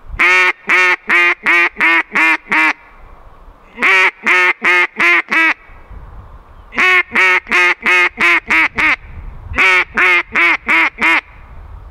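ZINK ATM double-reed duck call blown in four runs of short, abrupt quacks, about six in each run. It imitates a hen duck's quacking cadence.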